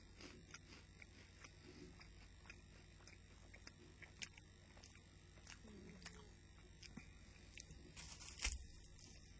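Quiet chewing of a dark-chocolate-coated rice cake, with faint crisp crunches and clicks scattered throughout and one louder knock about eight and a half seconds in.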